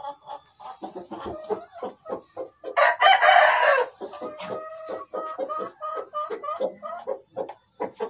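Parrot-beak Aseel rooster crowing once, a loud, rough call of about a second that comes about three seconds in, amid many short repeated clucking notes from chickens.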